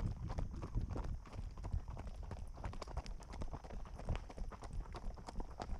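Arabian horse's hooves striking a gravel trail, a quick, continuous run of irregular clops under a rider.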